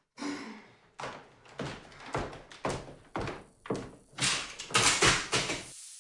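Footsteps on a hard floor: a string of sharp taps, about two a second, that cuts off suddenly near the end.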